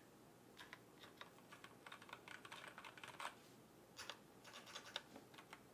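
Faint, irregular clicking of keys being typed on an ErgoDox EZ split mechanical keyboard with both hands, starting about half a second in.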